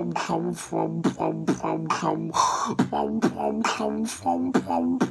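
Beatboxing: a fast, even rhythm of sharp mouth-percussion clicks and hisses alternating with short, low, pitched vocal bass notes, with a longer hissing sound about halfway through.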